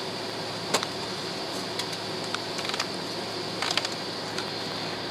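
Steady jet airliner cabin noise while taxiing: an even rush with a low hum and a thin, steady high whine. A few short clicks and rattles are scattered through it.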